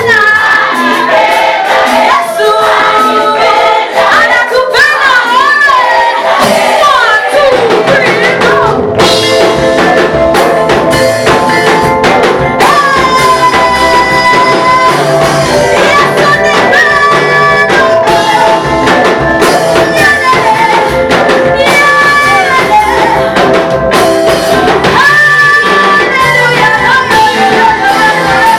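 Group of voices singing a praise song, at first with little accompaniment; about seven seconds in, bass and drums come in under the singing and carry on.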